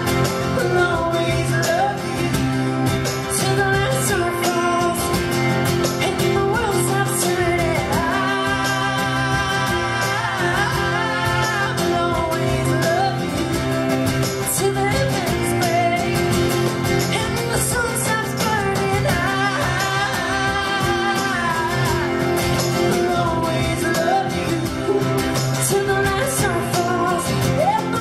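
Live band playing a song: lead and harmony vocals over strummed acoustic guitars and electric guitar.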